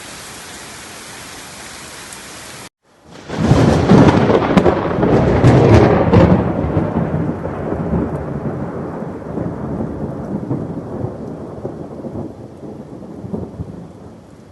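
Steady hiss of heavy rain, then after a brief break a loud thunderclap that rumbles on and slowly dies away over about ten seconds.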